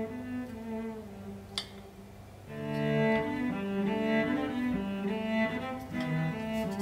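Instrumental background music of slow, held notes, softer for a moment and then fuller from about two and a half seconds in. A single short click sounds about a second and a half in.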